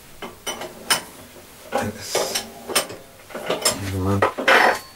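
Steel three-jaw chuck being fitted onto a milling machine spindle: a string of irregular metal knocks and clinks, the loudest near the end.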